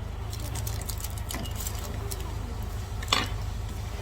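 Restaurant eating sounds: small clicks of utensils and dishes over a steady low room hum, with one sharper clink about three seconds in.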